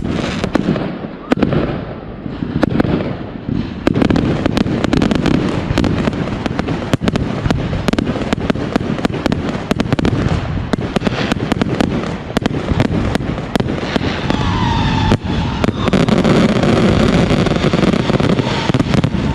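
Fireworks display going off continuously: many sharp bangs and crackles in quick succession over a steady rumble of launches and bursts.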